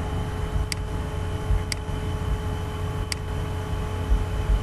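Three light, sharp clicks from a computer mouse and keyboard, about a second apart, over a steady low hum and hiss of microphone and room noise.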